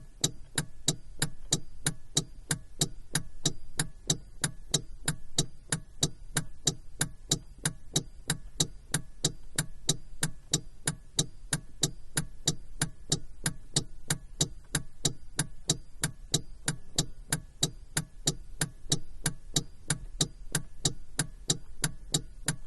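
Car turn-signal indicator ticking steadily inside the cabin, about three clicks a second in alternating tick-tock pairs, over a low steady hum.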